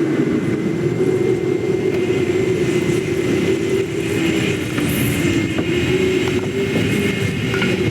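Jet airliner engines running with a steady rumbling noise and a held low hum, no sharp events.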